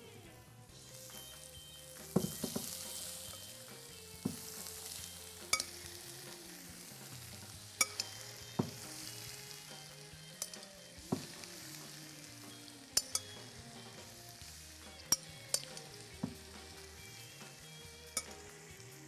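Sliced onions sizzling in a frying pan, the hiss rising about a second in, with a dozen or so sharp clinks and knocks against the pan and bowl as a ricotta and cottage cheese mixture is added.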